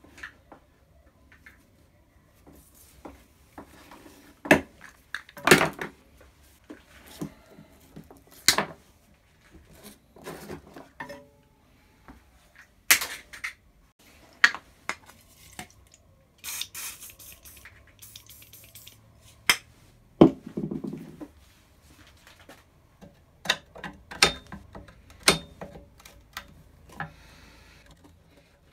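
Irregular metallic clinks, knocks and scrapes of hand tools working on an old bench grinder's metal housing as it is dismantled.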